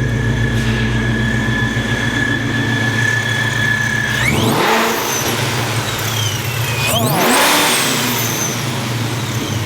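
Supercharged Boss 302 Coyote V8 idling through a 3-inch Hooker exhaust with Spintech mufflers, in a deep tone, with a steady high supercharger whine. About four seconds in it is revved twice, the whine rising and falling in pitch with each blip.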